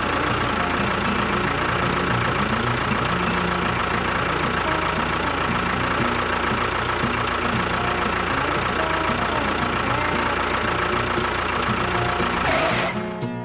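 A small engine or motor running steadily with a constant whine, cutting off near the end, over background music.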